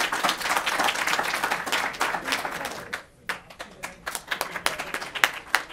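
Audience applauding: dense clapping that breaks off about three seconds in, followed by scattered single claps.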